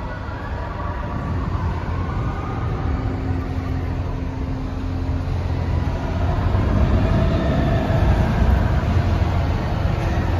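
Low, steady rumble of an amusement ride's machinery running, growing gradually louder as the ride builds up.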